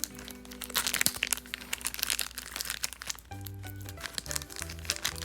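Toy packaging crinkling and rustling as it is handled, over background music; a bass line comes into the music a little over three seconds in.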